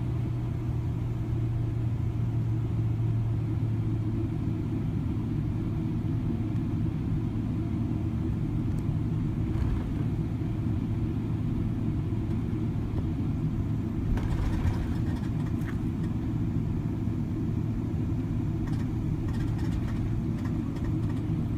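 Airliner cabin noise while taxiing: the jet engines and airframe make a steady low drone with a steady hum. A few faint clicks or rattles come about two-thirds of the way through and again near the end.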